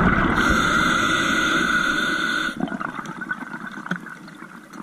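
Scuba diver's exhaled bubbles rushing out of the regulator, a loud burst that stops about two and a half seconds in, followed by quieter underwater background with faint clicks.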